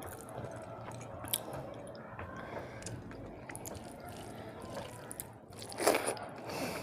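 Close-miked chewing and small mouth sounds of a person eating, with scattered soft clicks and a louder brief mouth sound about six seconds in.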